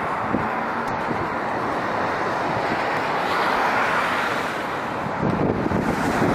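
Airbus A320-232 jet engines on final approach with landing gear down: a steady rushing jet noise that swells briefly about midway as the plane closes in. Wind gusts buffet the microphone near the end.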